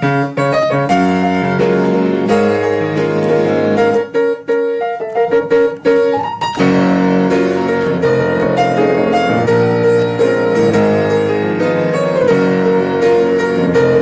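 Background piano music: a melody over chords, with a stretch of short, clipped notes in the middle.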